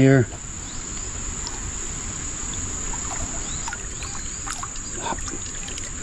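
Garrett AT Max metal detector giving a few faint, short target tones between about three and five seconds in, as the coil is swept over a shallow creek bed. A steady high drone of insects runs under it, with a low rumble of water.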